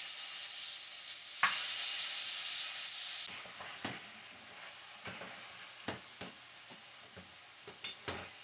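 Curry-seasoned goat meat sizzling loudly in hot oil as pieces are dropped into the pot: the curry powder is being burned off the meat. The sizzle surges about a second and a half in and drops away suddenly a little past three seconds. After that, quieter frying continues with scattered light knocks against the pot.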